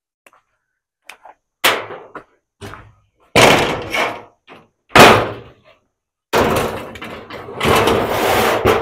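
Workshop handling noises: loud bangs and knocks about two, three and a half and five seconds in, then a longer scraping, rattling noise through the last two seconds.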